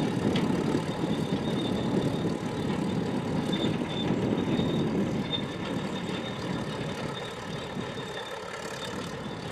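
Low engine rumble that fades a little toward the end.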